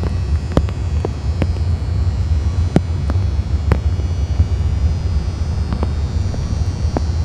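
A steady low mechanical hum, with scattered sharp clicks over it.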